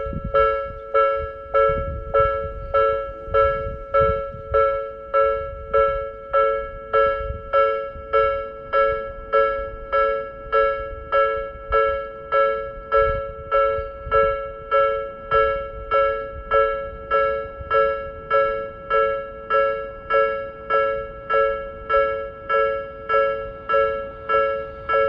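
Japanese railway level-crossing alarm ringing its electronic bell at a slow rate, the uploader's 'low-speed Nikko type' sound: a steady, even ding, about one and a half strikes a second, warning that a train is approaching.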